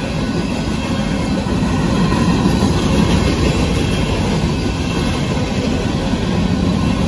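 Loaded covered hopper cars of a Union Pacific freight train rolling past: a steady, heavy rumble of steel wheels on rail, swelling slightly in the middle.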